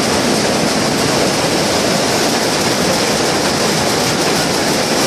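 Shuttleless looms weaving terry towelling: a loud, steady, fast mechanical clatter that does not let up.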